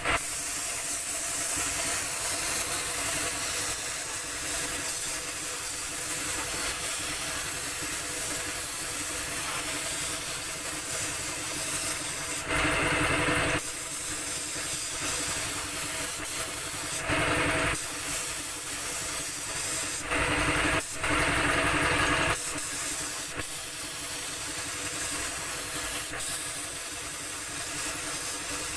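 Air spray gun hissing as paint is sprayed, with several louder stretches of hiss as the trigger is pulled harder, over a steady low hum.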